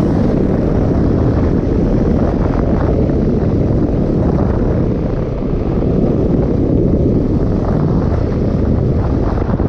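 Wind buffeting the camera microphone at riding speed over the Husqvarna 701's single-cylinder engine running steadily under way on a dirt track.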